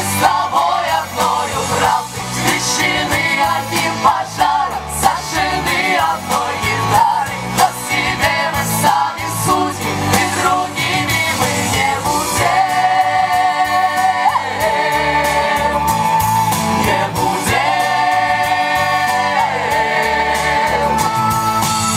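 A song: a singer over instrumental accompaniment. In the second half the singer holds several long notes with a slight vibrato.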